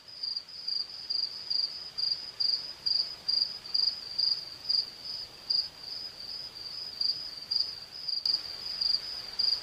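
A cricket chirping steadily, one high-pitched chirp about twice a second, over a faint hiss.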